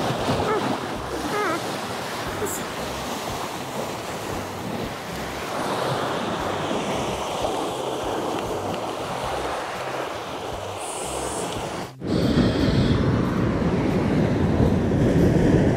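Sea surf washing against a rocky shore, with wind on the microphone. About twelve seconds in it drops out for an instant and comes back louder and deeper.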